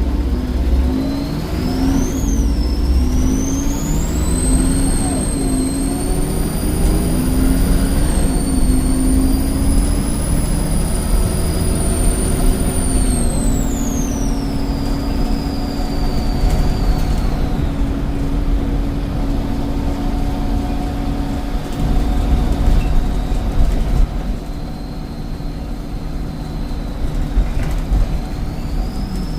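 Volvo D7E 7.1-litre diesel's turbocharger whistling on a Volvo B7RLE bus under acceleration, over the engine drone. The whistle rises about a second in, holds high, and falls away around the middle. A fainter whistle follows and rises again near the end.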